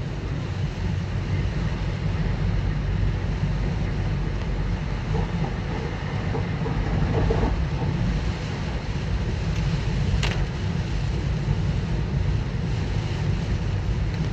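A car driving through a typhoon: a steady low rumble of road and engine noise, with wind noise over it and a brief click about ten seconds in.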